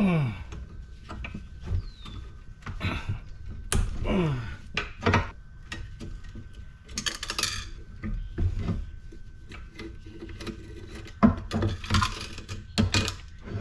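Irregular clinks, knocks and rattles of hand tools and metal parts as a cast aluminum LED light fixture is taken apart for scrap.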